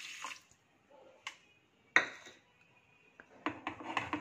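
Water poured onto sugar in a stainless-steel pan, heard briefly at the start, then kitchen utensils knocking against the pan: a sharp clink about two seconds in and a run of small clinks near the end.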